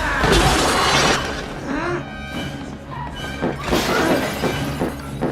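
Film-score music with a sudden loud, noisy crash at the start, then repeated sharp hits over the music.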